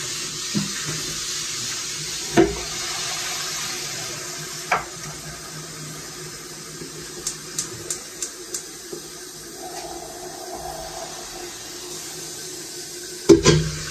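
Kitchen tap running steadily into a stainless-steel saucepan in the sink as it fills. A few sharp knocks sound over it, the loudest near the end.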